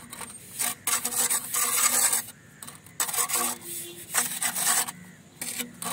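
Steel mason's trowel scraping and spreading mortar across the top of a brick course in a series of strokes, some short and one about a second and a half long, with brief pauses between. This is the mortar bed for the next course being levelled against a straightedge.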